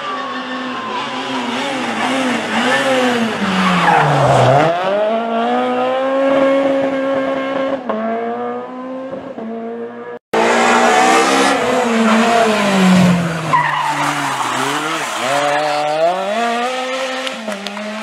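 Renault Clio R3 rally cars' naturally aspirated 2.0-litre four-cylinder engines at full stage pace, revs climbing and dropping through gear changes as the cars brake and accelerate through corners. The revs fall steeply about four seconds in, then climb again. The sound breaks off suddenly about ten seconds in, and a second car's pass begins with the same rising and falling revs.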